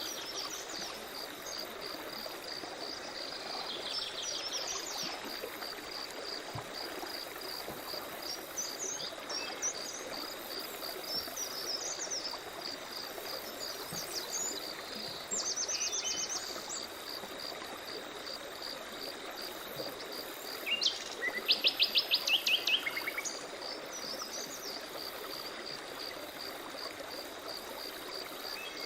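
Forest stream running steadily under an insect's evenly pulsed high chirp. Birds call now and then, with the loudest a rapid run of about ten sharp notes about two-thirds of the way through.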